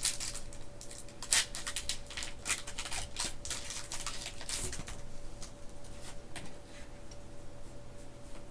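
Foil Pokémon booster pack wrapper crinkling and rustling as it is opened and the cards are handled: a run of sharp crackles that thins out after about three and a half seconds.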